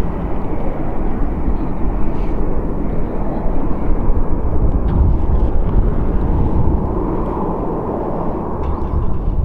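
Rolls-Royce RB211-524 jet engines of a Boeing 747-400 freighter running at low power, a steady rumble and hiss.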